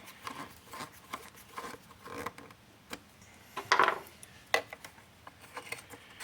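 Handling noises from a hand tool and engine-bay parts: scattered small clicks and rubbing, with a brief louder scrape about three and a half seconds in and a sharp click shortly after.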